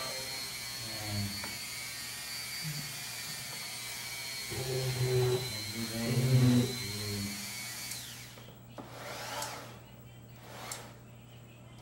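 Lotus LRT170C rotary tool with its flexible shaft attached, running at speed with a steady high whine that wavers a little in pitch; about eight seconds in it is switched off and the whine drops away as it winds down.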